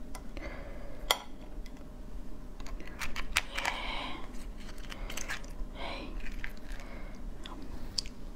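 Fingers prying apart a soy-marinated crab's shell: scattered sharp clicks and cracks of shell, with short scraping sounds between them and some chewing.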